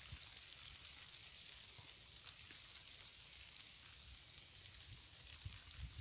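Faint outdoor ambience: a steady high hiss with a faint low rumble.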